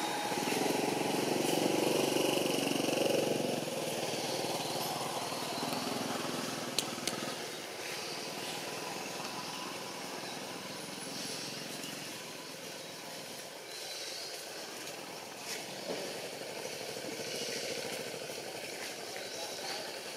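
A motor vehicle's engine running, loudest in the first few seconds and then fading, over a steady outdoor background.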